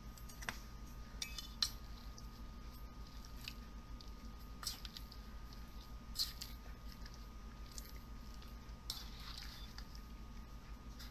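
Raw chicken pieces being mixed by hand with spice powders and ginger-garlic paste in a bowl: scattered soft, wet squishes and light clicks against the bowl, over a low steady hum.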